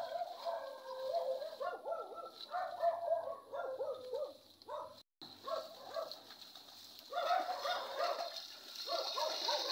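Repeated wavering, pitched animal calls in several spells, with a short dropout about five seconds in. A steady high hiss joins in the last few seconds.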